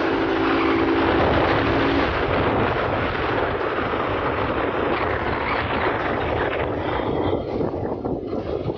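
Wind rush and engine of a Yamaha R15 V2 single-cylinder sport bike riding along a road, picked up from on the bike. A steady engine note sits under the rush for the first two seconds, and the rush thins near the end.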